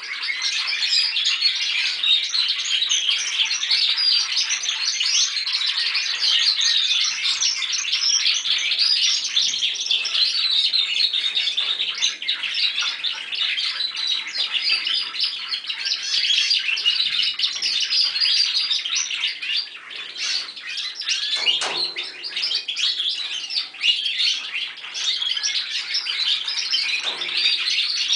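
Young Spanish Timbrado canaries singing without a break, several birds at once: juvenile males practising their song.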